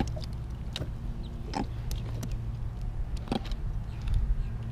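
Jack crevalle grunting in a landing net: a few short, separate croaks over a steady low rumble.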